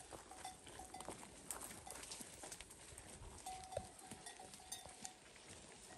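Faint, steady patter of light rain on hillside vegetation, with a small bell on grazing goats clinking in short repeated notes, most often from about halfway through. A few sharp clicks are scattered throughout.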